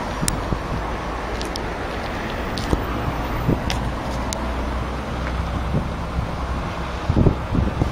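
John Deere 8230's 9.0-litre six-cylinder diesel engine idling steadily, with a few light clicks and a short burst of louder noise about seven seconds in.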